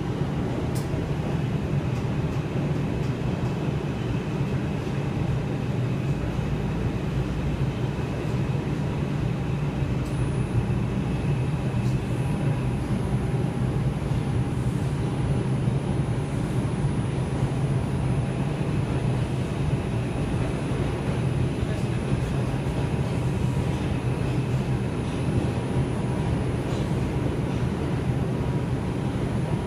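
R142 subway car running at speed through the tunnel: a steady rumble of wheels on rail and running gear heard from inside the car. A faint high whine comes in twice, for about ten seconds near the start and again midway through.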